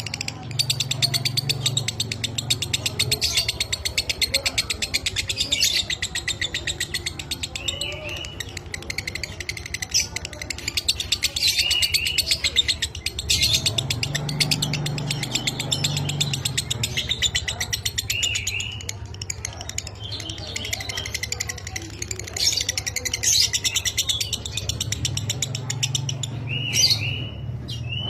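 Lovebird singing a long, dry, rapid chattering ngekek: a fast run of clicky notes, broken by short repeated whistled notes, over a steady low hum.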